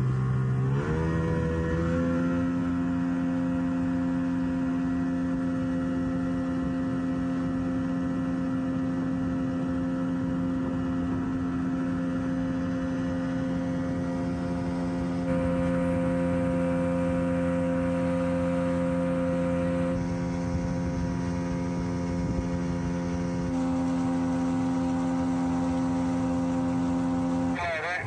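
Two-stroke outboard motor revving up in the first couple of seconds, then running at a steady high speed. It is pushing a heavily overloaded boat that does not get up on plane.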